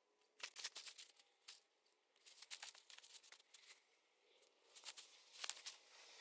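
Faint rustling and crinkling in short, irregular bursts as a camping hammock's nylon fabric and tree straps are handled.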